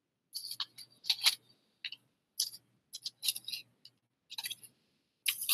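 A small torn piece of thin sandpaper rubbed against a miniature paper mache figure and shifted in the fingers: a run of short, dry, scratchy strokes at an irregular pace, the loudest and longest near the end.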